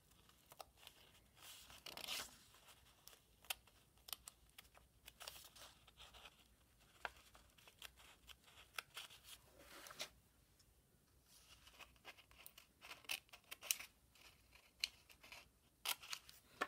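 Scissors cutting paper, faintly, in many short, irregular snips.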